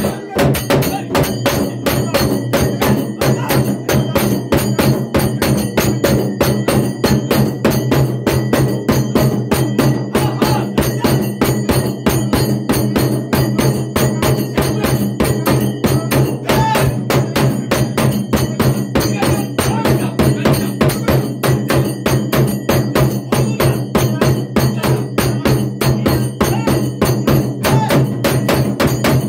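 Fast, steady percussion music: continuous rhythmic drumming over a steady low drone.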